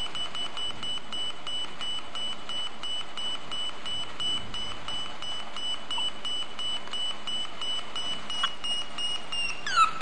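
Small loudspeaker driven by two 555 timer ICs, the first timer's output feeding the second's control-voltage pin: a steady high-pitched electronic tone chopped into fast, evenly spaced pulses, like an alarm-clock beep. Near the end the pitch drops sharply to a lower tone.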